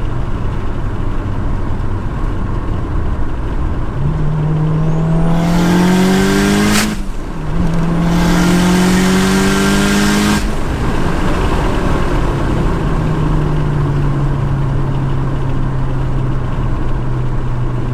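Turbocharged Mitsubishi Lancer Evolution VIII four-cylinder accelerating hard under boost on a fresh tune: the engine note rises through one gear, dips briefly at a gear change about seven seconds in, and rises again through the next. It cuts off sharply as the throttle lifts about ten seconds in, then settles to a steady cruise.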